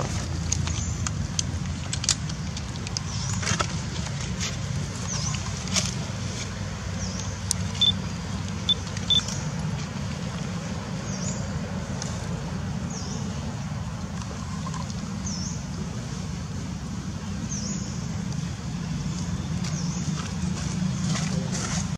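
Outdoor ambience: a steady low rumble with scattered sharp clicks, and three short high chirps about eight to nine seconds in.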